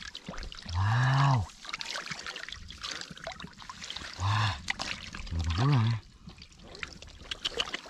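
Shallow water splashing and trickling as hands work through it. Three short voiced exclamations break in, about a second in, then around four and five and a half seconds.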